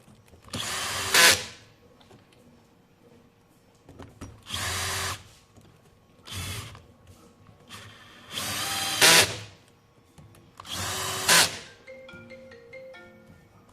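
Electric screwdriver driving screws in five short runs, each ending in a brief, louder peak.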